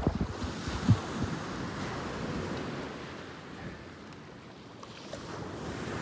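Wind buffeting the microphone over sea wash at a boat, a steady rushing noise that eases off past the middle and swells again near the end, with one short low thump about a second in.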